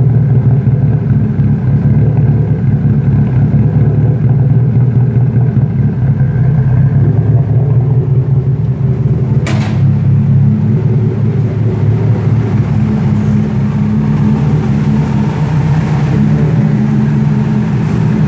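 Nissan S13's turbocharged SR20DET four-cylinder running at a steady idle through a twin-tip exhaust, an even rumble. There is a single click about halfway through.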